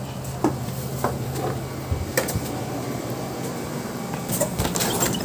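Scattered clicks and light knocks from a covered frying pan and its glass lid being handled, over a low steady hum that stops about two seconds in; the clicks come thicker near the end.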